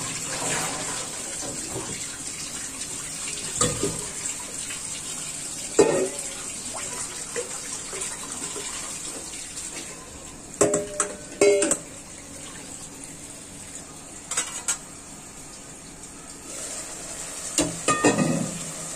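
Tap water running into a steel sink, then stainless-steel pots and bowls clanking and clinking against each other and the stove several times, loudest about six and eleven seconds in.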